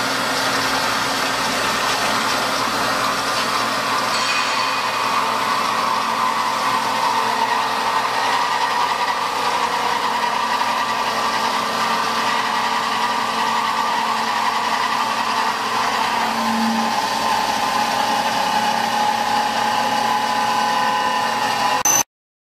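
CNC beam drilling machine drilling holes in a steel beam: a steady mechanical whine of spindles and cutting, with a few held pitches that drift slightly. It cuts off suddenly near the end.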